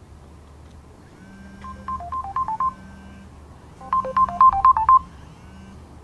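A phone ringtone: a quick melodic run of short beeping notes, heard twice, the second run louder.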